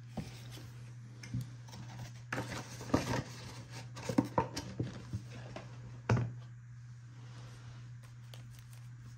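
Foil-wrapped trading card packs being handled and shifted in stacks on a desk: scattered rustles, taps and clicks, the loudest about six seconds in, then fewer. A low steady hum runs underneath.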